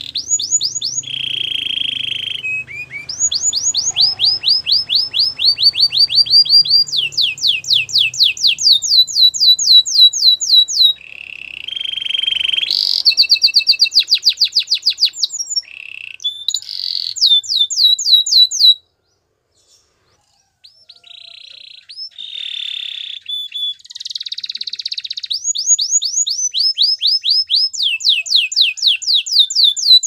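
A domestic canary singing: phrases of rapid trills of fast-repeated high notes, mixed with sliding and buzzy notes. The song breaks off into silence for about two seconds, two-thirds of the way through, then starts again.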